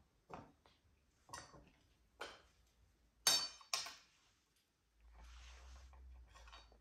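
Metal cutlery clinking against a ceramic plate as a red-tailed black cockatoo picks at it with its beak: about five sharp, ringing clinks, the loudest two close together about three and a half seconds in. A soft steady hiss follows near the end.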